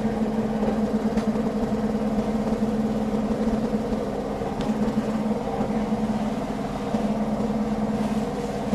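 A steady mechanical hum from a running motor, holding one low tone and a higher one without change.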